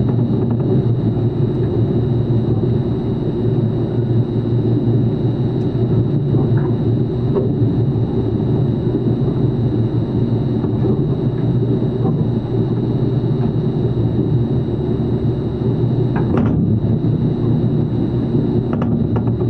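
Steady machinery rumble with a thin, high, steady whine above it and a few faint clicks.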